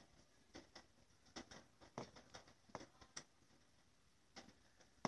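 Near silence broken by about a dozen faint, irregular clicks and taps, with a pause of about a second after the middle.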